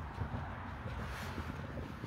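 Wind rumbling on a handheld phone's microphone, with a brief rustle about a second in.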